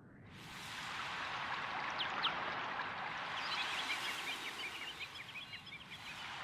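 Running water, a steady hiss that fades in over the first second, with short high bird chirps over it, a quick flurry of them near the middle.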